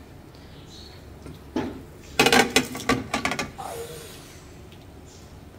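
A quick run of clatters and knocks, kitchenware against a pan, as grilled chicken pieces go into a creamy sauce. A single click comes first, the main clatter about two seconds in, and a short falling squeak near the middle.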